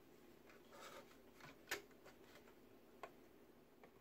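Near silence with a few faint clicks and taps as a bare charger circuit board is handled in its plastic case.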